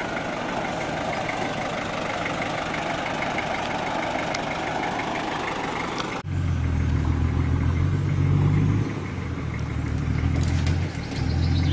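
Off-road 4x4 engine working through mud. First a steady, noisy running with a faint regular ticking, then about six seconds in an abrupt change to a deep engine note that revs up and drops back twice.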